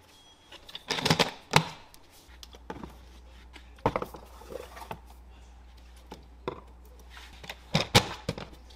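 Metal food cans and bottles being set down and shuffled on a plastic storage shelf, a few separate clunks and clinks. Near the end, a sharp knock as the plastic cabinet door is pushed shut.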